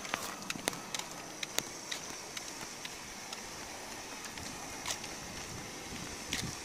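Flip-flops slapping on a concrete pavement while walking, heard as irregular sharp clicks over a steady high-pitched hiss.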